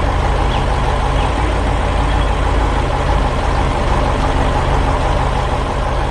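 Heavy vehicle engine running steadily with a low rumble, an animation sound effect.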